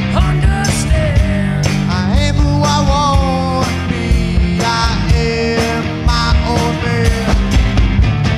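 Rock band track: electric guitars, bass and drums playing with a steady, driving beat.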